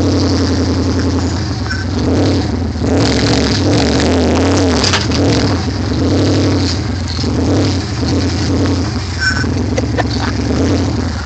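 Dodge Ram pickup truck's engine running steadily at low speed as the truck sits or creeps on gravel, with a few short clicks.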